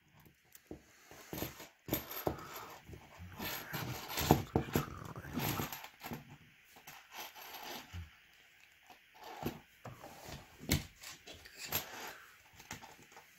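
Pick and tension wrench being worked in a Regal 3035A gun lock: irregular small metal clicks, taps and scrapes.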